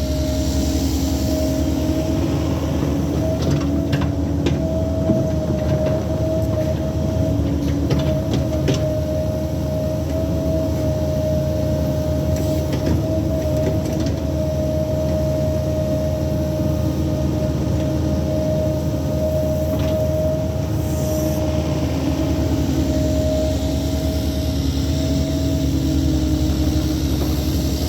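Cat 308 mini excavator's diesel engine and hydraulics running steadily under work, a constant rumble with a steady whine over it, and a few light knocks in the first several seconds.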